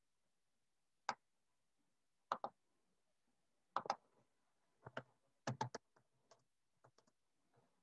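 Scattered clicks of a laptop keyboard and mouse: a few single clicks, then a quicker run of key presses about five seconds in as a word is typed.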